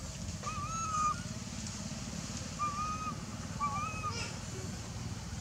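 Juvenile long-tailed macaque giving three short whimpering coos, a plaintive crying call, over a steady low hum.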